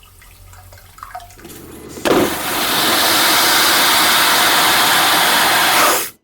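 Toilet flushing: a few faint clicks, then the flush starts suddenly about two seconds in as a loud, steady rush of water that cuts off abruptly near the end.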